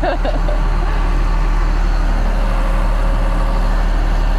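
Farm truck engine running with a steady low drone.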